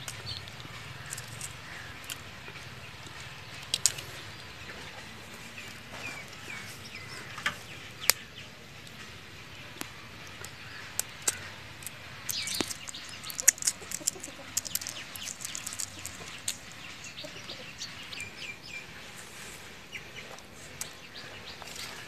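Small sharp clicks and crackles of eggshell breaking and peeling off a hard-cooked chicken egg by hand, coming thickest about halfway through. Birds chirp in the background.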